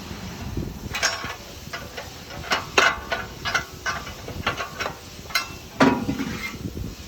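Metal exhaust parts clinking and knocking as the stock silencer is worked off its rubber-grommet mounts: a series of sharp irregular knocks, the loudest ringing briefly about a second, three seconds and six seconds in.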